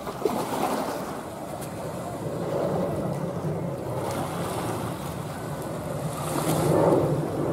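Airbus A320-232 climbing overhead after takeoff, its IAE V2500 turbofan engines giving a steady rumble that swells near the end, with some wind noise on the microphone.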